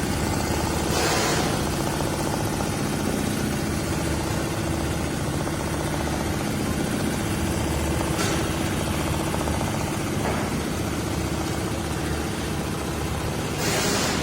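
Fuwei computerised embroidery machine running steadily, a continuous mechanical hum and rapid stitching rattle.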